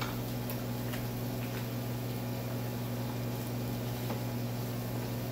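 Microwave oven running with a steady electrical hum, with a few faint clicks of handling at the counter.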